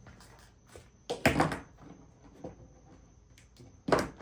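Two loud hard clunks of something being handled or set down, a short cluster about a second in and a single one near the end.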